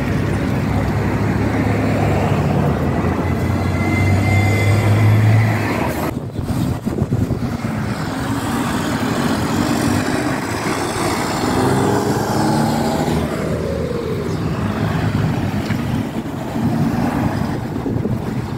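Road traffic going by close at hand: heavy trucks' diesel engines running, loudest for about the first five seconds, then more vehicles passing, with one engine note falling in pitch about thirteen seconds in.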